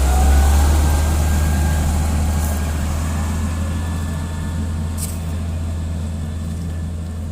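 Heavy diesel engine of a motor grader running steadily with a deep drone that slowly grows quieter.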